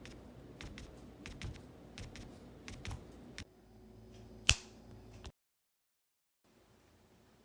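A run of irregular light clicks and taps for about three seconds, then, after an edit, one sharp loud click about four and a half seconds in.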